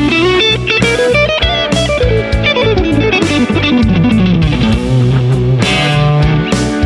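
Electric guitar playing a lead solo over a backing track with drums and bass, with a fast descending run about halfway through.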